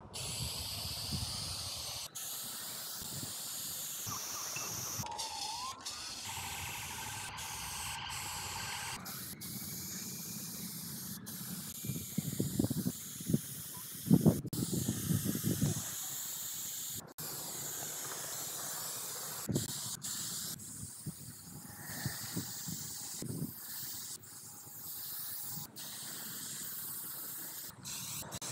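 Aerosol spray paint cans hissing as paint is sprayed onto a concrete wall. The hiss comes in stretches that break off and restart many times, with a few louder low rumbles near the middle.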